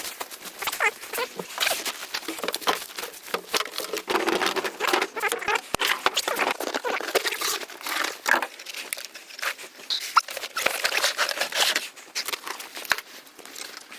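Heavy rain pattering, a dense irregular spatter of drops close to the microphone.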